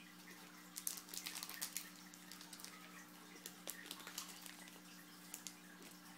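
Trading cards being handled and flicked through by hand: a cluster of quick light clicks and rustles about a second in, then scattered single ticks, over a faint steady hum.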